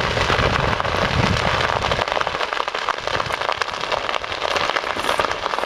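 Dense crackling and popping of a vegetation fire burning dry grass and Japanese cedar trees, with a low rumble under it that fades about two seconds in.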